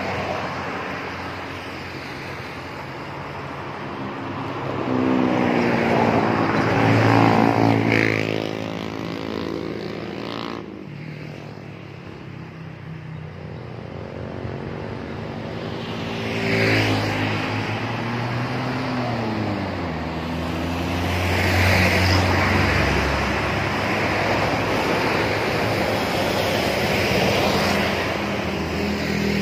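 Buses and trucks driving past one after another. Their engine note climbs as each one approaches and falls away as it goes by, over a rush of tyre and road noise.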